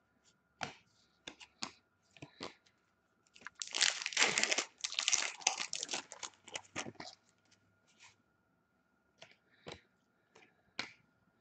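A 2014-15 Upper Deck Series 1 hockey card pack's wrapper being torn open and crinkled: a dense crackling rustle for about three and a half seconds in the middle. Scattered light clicks and taps come before and after it.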